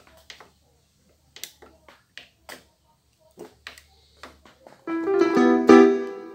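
Light clicks of panel buttons being pressed on a Yamaha PSR-S670 arranger keyboard, then, about five seconds in, a short loud run of piano-like notes played on it that rings out briefly.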